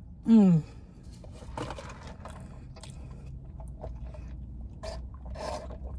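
A short falling "mmm" of enjoyment, then faint, scattered mouth noises of chewing food and sipping a drink through a straw.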